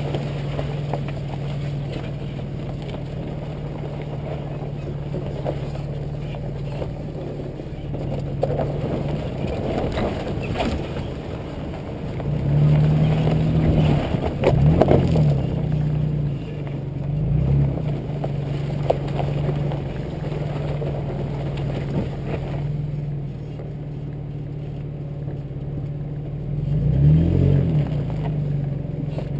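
2005 Nissan Xterra's 4.0-litre V6 driving slowly off-road, picked up close from low on the rear bumper. The engine runs steadily, the revs rise and fall about halfway through and again near the end, and a few knocks come from the truck working over the track.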